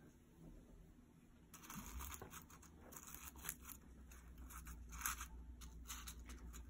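Chopsticks pressing down dried rose petals and herbs in a glass jar, making faint, irregular crinkling and scraping sounds that start about a second and a half in.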